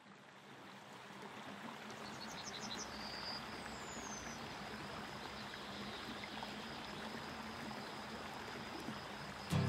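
Rushing stream water fading in, with a bird chirping quickly several times about two seconds in and a thin falling whistle a second or so later.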